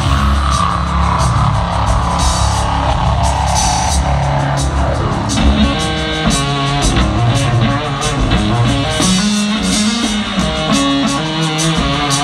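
Rock band playing live: electric guitar over drums.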